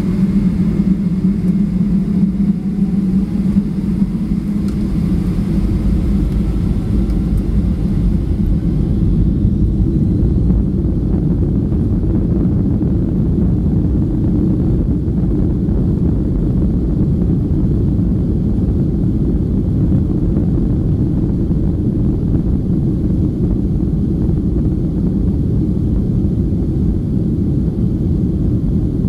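Cabin noise of a Boeing 757-200 on its takeoff roll: a loud, steady rumble of the engines and the wheels on the runway. A faint rising whine runs through the first several seconds.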